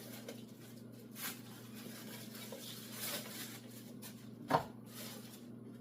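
Plastic parts of a Hamilton Beach juice extractor being handled and pushed out of place, with a few soft knocks and one sharp click about four and a half seconds in. A faint steady hum runs underneath.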